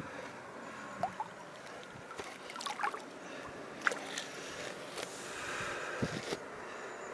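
Shallow margin water lapping, with a few small splashes and light knocks scattered through, as a released pike moves off in the shallows.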